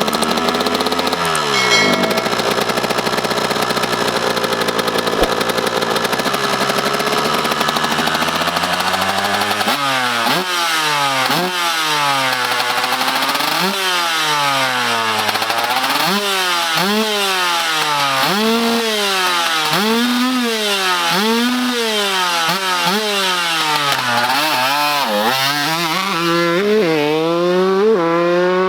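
1996 Yamaha YZ125 two-stroke single with a Pro Circuit expansion chamber, running at a steady idle for about ten seconds, then revved up and down over and over in rising and falling sweeps, climbing higher near the end.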